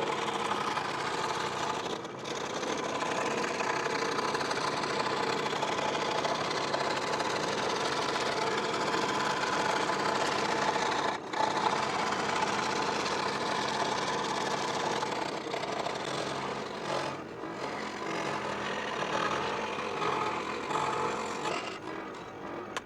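Delta 16-inch variable-speed scroll saw running, its fine-toothed reciprocating blade cutting through half-inch plywood with a steady buzz, dipping briefly a few times.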